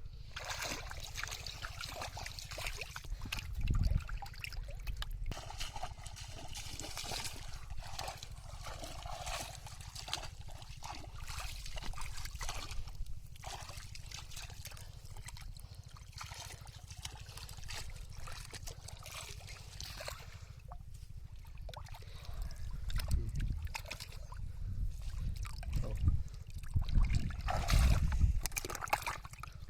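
Shallow water splashing and trickling in irregular bursts as hands move through it, groping for fish. Heavier low rumbles come about four seconds in and again over the last several seconds.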